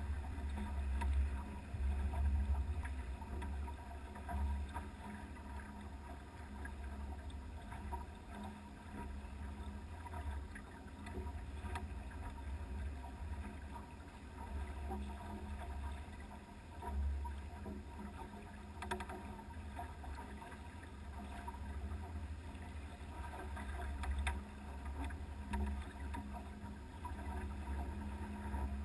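Pearson Triton sailboat under way: a steady low rumble of water and wind around the hull, swelling and easing every few seconds, with a couple of faint knocks.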